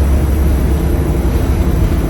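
Volvo B7RLE bus's 7.3-litre Volvo D7C diesel engine running with a steady, loud low rumble.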